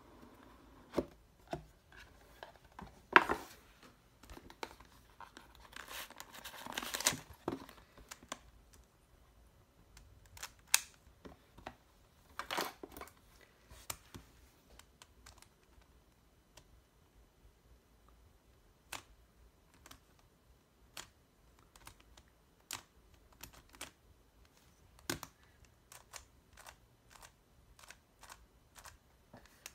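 A cardboard speed-cube box being opened, with card and paper packaging sliding, rustling and crinkling and a sharp knock about three seconds in. After that come sparse, short plastic clicks as the Sengso Yufeng 3x3 cube is handled and its layers turned, a little more often near the end.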